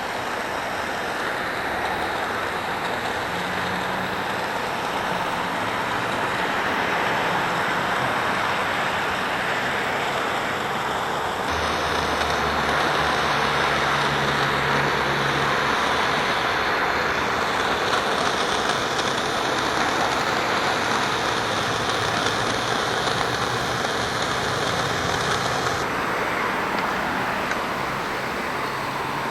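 A soldering torch burning with a steady hiss, the sound turning brighter about eleven seconds in and easing back a few seconds before the end, with a faint low hum for a few seconds in the middle.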